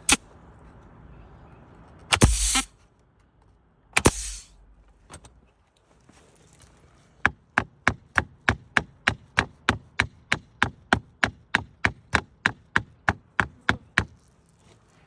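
Hammer blows driving a wooden roof shake up into place, a steady run of about three sharp strikes a second for roughly seven seconds, after two short, sharp blasts of noise near the start.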